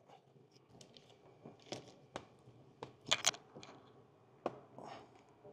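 Wet plastic window tint film crinkling and crackling as it is handled against car door glass, with a few sharp clicks, the loudest two close together about three seconds in.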